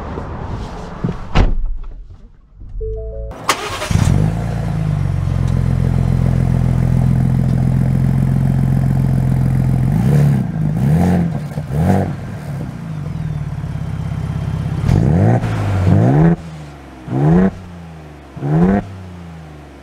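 Ford Bronco Raptor's twin-turbo V6 starting about three and a half seconds in and settling into a steady fast idle. Over the second half it is revved in a series of short blips that rise and fall.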